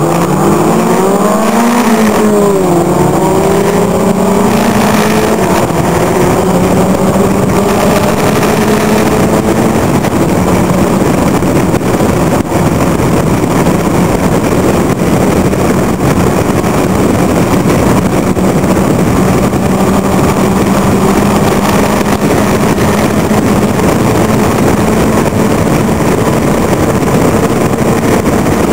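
Locost club racing car's engine heard loud from on board at racing speed: it climbs in pitch over the first two seconds, dips briefly, then holds a near-steady high-rev note, with heavy wind rush over the open car.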